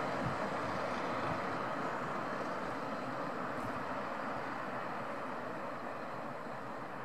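Loaded coal freight train rolling away along the line, a steady rumble of wheels on rail that slowly fades.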